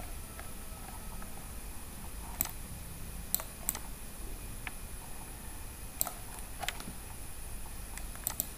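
About seven short, sharp clicks of a computer mouse, spaced irregularly, over a faint steady background hiss with a thin high whine.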